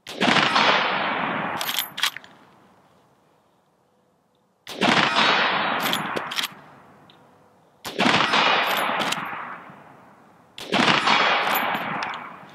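Four shots from a Glenfield model 30A (Marlin 336) lever-action rifle in .30-30, a few seconds apart, each echoing and dying away over about two seconds. After each shot come a few sharp metallic clicks as the lever is worked to chamber the next round.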